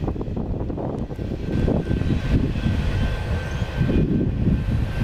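The tail end of a CSX double-stack intermodal freight train rolling away, its wheels rumbling on the rails, with a few clicks in the first second and a faint steady high tone in the second half.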